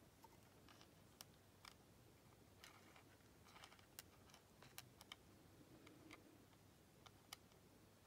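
Very faint, scattered small clicks, about nine in all, of steel tweezers and fingers nudging brass lock pins into place in a plastic pin tray.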